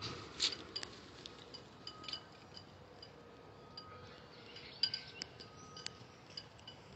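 Faint, light metallic tinkling: scattered short, clear chimes at several pitches, mixed with small clicks, over a faint steady hum.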